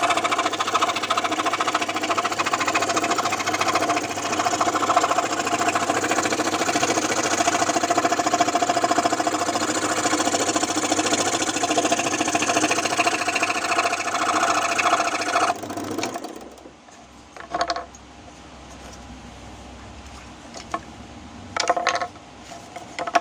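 Scroll saw running, its blade reciprocating with a fast, steady mechanical chatter, then switched off about two-thirds of the way through; after it stops there are only a few brief, faint knocks or handling sounds.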